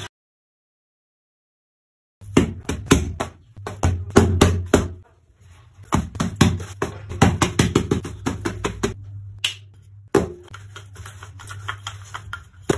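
About two seconds of silence, then a quick, irregular run of knocks and slaps as hands handle and pat yeast dough on a semolina-dusted granite counter, followed by a wooden rolling pin rolling it out. A low steady hum runs under the handling.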